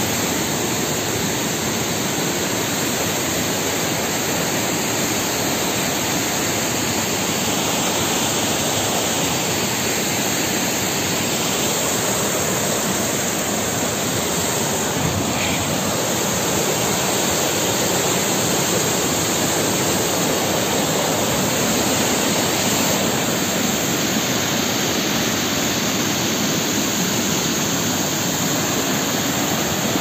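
Waterfall pouring over a rock lip close by: a loud, steady rush of falling water.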